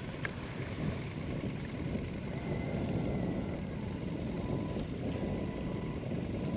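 Wind buffeting the microphone on an open boat on the water, a steady low rumble, with a couple of small clicks right at the start.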